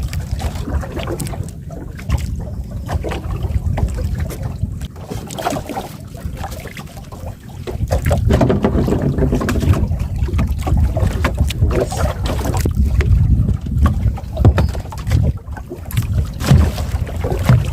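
Wind rumbling on the microphone over water moving around a small fishing boat at sea, getting louder about eight seconds in.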